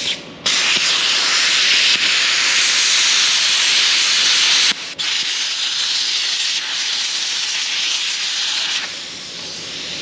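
Plasma cutter with an arc-gouging tip gouging a hard drive's aluminium casing: the arc gives a loud, steady hiss. The hiss breaks off for a moment about five seconds in, then resumes, and drops to a softer hiss near the end.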